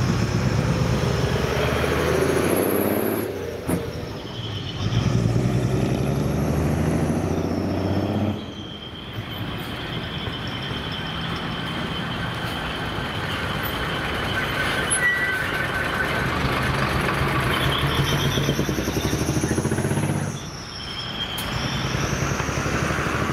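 Heavy trucks' diesel engines running as several trucks pull away one after another, the engine sound dipping briefly between trucks, about 4, 8 and 20 seconds in.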